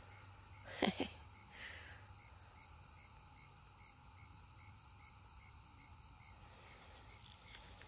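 Faint night chorus of insects in summer woods, with one evenly repeating chirp about twice a second over a steady high hiss. Two quick clicks about a second in.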